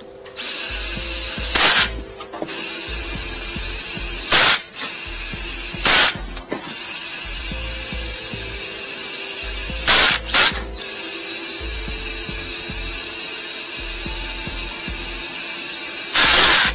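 Cordless drill spinning a flexible-shaft drain cleaning cable inside a floor drain, whirring steadily and stopping briefly a few times, with several short louder bursts. The spinning cable is knocking hardened epoxy loose from a blocked drain.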